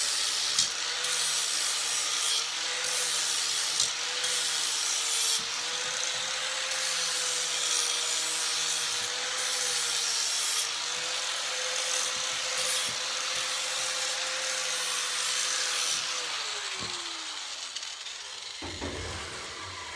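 Electric grinder running against the cut end of a roll-cage tube, cleaning off the flashing, with a steady motor whine under the grinding noise. About sixteen seconds in it is switched off and winds down with a falling whine.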